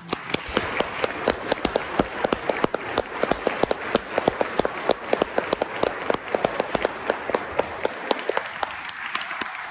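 Audience applauding, with one person's sharp, loud claps close by over the general clapping. It starts suddenly and begins to thin out near the end.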